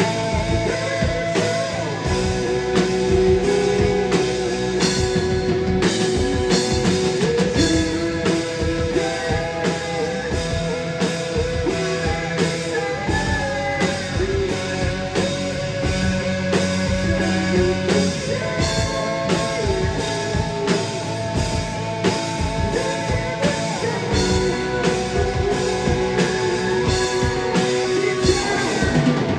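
Rock band playing live: electric guitar and drum kit driving a steady beat, with singing over them.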